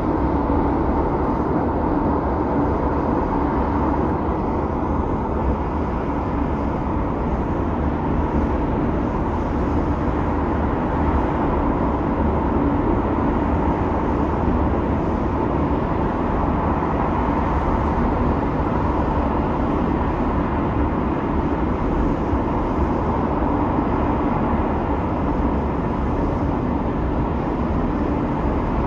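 Jet engine running on a factory test stand: a steady, unbroken rushing noise with a low hum in it, holding level throughout.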